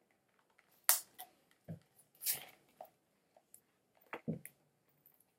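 Plastic toy packaging being handled and opened by hand: a scattered series of sharp clicks and short crinkles, about one every second.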